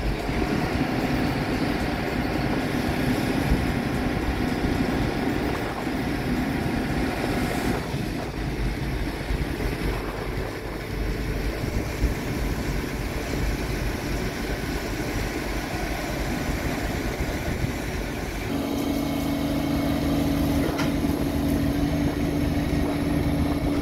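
Heavy construction machinery engines running steadily. About 18 seconds in, a closer engine with a steady, even pitch takes over.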